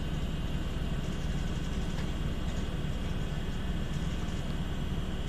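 Steady low hum of running computer hardware, with a few faint ticks.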